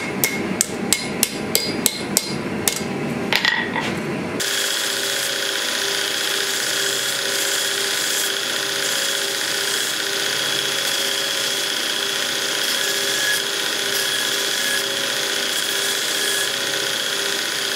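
Hand hammer striking a small metal fitting on a steel anvil, about three ringing blows a second. After about four seconds it cuts abruptly to a belt grinder running steadily while the small metal piece is ground against its abrasive belt.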